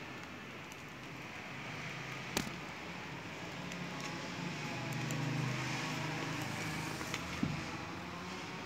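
Clicks and crinkles of clear plastic album sleeves as a banknote album is handled and a page is turned, over a steady low hum that swells about halfway through.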